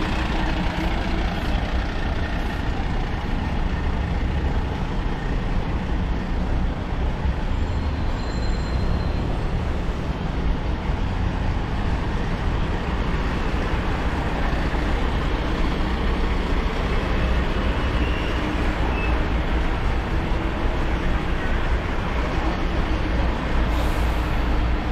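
Steady high-street traffic noise, led by a low engine rumble from heavy vehicles such as buses.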